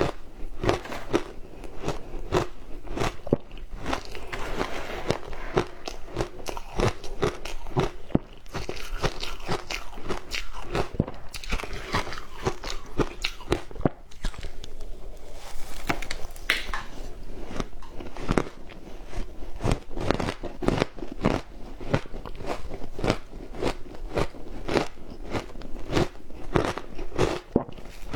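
Frozen matcha ice being bitten and chewed: a dense, irregular run of sharp, close-up crunches.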